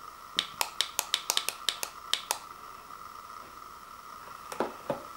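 Sharp clicks from the Equate heating pad's hand controller buttons, about ten in quick succession within two seconds, then two softer knocks near the end.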